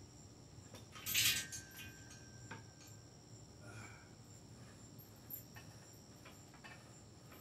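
A metal clatter and jingle as the low-pulley handle and chain on a home-gym cable machine are picked up, with a brief metallic ring after it, then a few faint clicks as the cable row begins.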